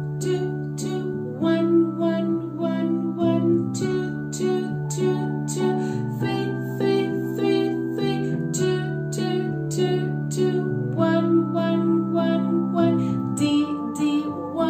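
A woman singing violin finger numbers ('two, two, two, two, one, one, one, one…') on held notes, one number to each beat, over a plucked-string backing track with a steady pulse.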